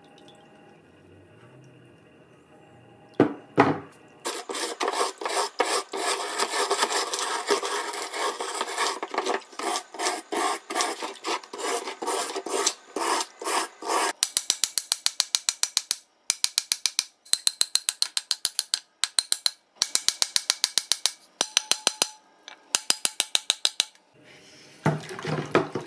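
A steel wire brush scrubbing a rusty iron horseshoe in a tub of water, working loose rust softened by a long Evapo-Rust soak. It starts with a dense run of fast rasping strokes, then about halfway through changes to quick short strokes in bursts with brief pauses. A couple of sharp knocks come just before the scrubbing starts.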